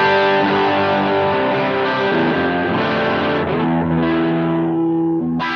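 Electric guitar played through a Line 6 Helix preset built on the Essex A15 amp model and a 1x10 US Princess cab miked with a 160 and a 414: a few ringing chords in a full, vintage-sounding tone.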